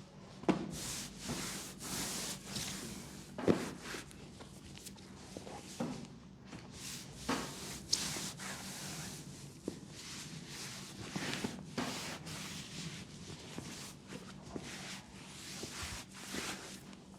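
Hands rubbing and kneading a bare leg in a massage: irregular swishing strokes of skin on skin, with a few sharper hits among them.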